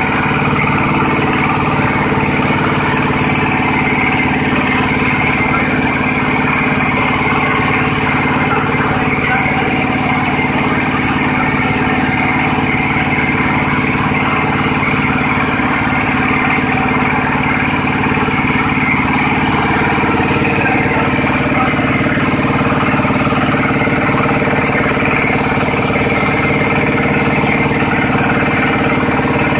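Single-cylinder stationary diesel engine running steadily under load, driving a rotary drum sieve for shredded coconut coir.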